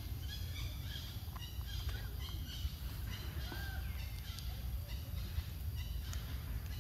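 Scattered short, high chirps and squeaks from small animal calls, some gliding briefly in pitch, over a steady low rumble.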